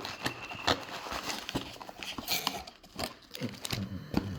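Hands rummaging through a shipping box full of foam packing peanuts: irregular rustling with many light clicks and knocks.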